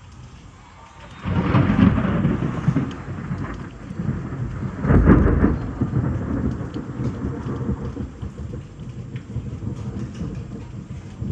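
A thunderclap breaks about a second in and rolls into a long rumble, with a second loud peal around five seconds in before it slowly fades. Rain falls steadily underneath.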